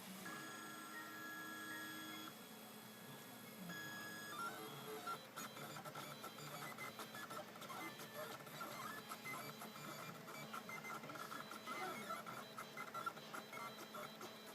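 Stepper motors of a Prusa i3-style RepRap 3D printer running. For the first few seconds they whine at a few steady pitches, with short pauses. Then, about four and a half seconds in, they break into busy printing moves with rapid ticking and quickly changing tones.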